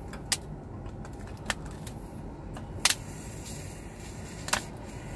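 Four short sharp clicks, a second or more apart, from a squeeze bottle of soapy water and a sponge being handled at the fittings of an aircraft crew oxygen cylinder during a soap-bubble leak check. A steady low background rumble runs underneath.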